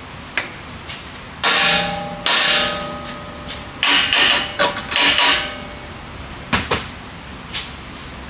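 Hand hammer striking the steel front suspension at the worn upper ball joint, to knock the joint loose: a light tap, then five hard blows that each ring metallically, then two lighter ones near the end.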